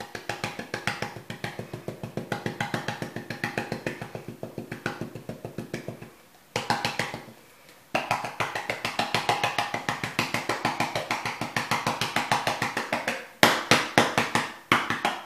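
Canister of cocoa powder shaken over a dessert to dust it, making a rapid run of light taps, about five a second. The taps pause about six seconds in and end with a few louder knocks.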